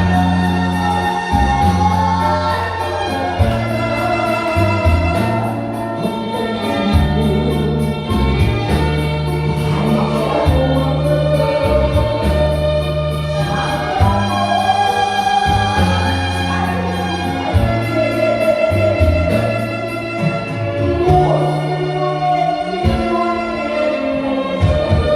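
Music: a sung melody with a wavering vibrato over a backing accompaniment with a steady, stepping bass line.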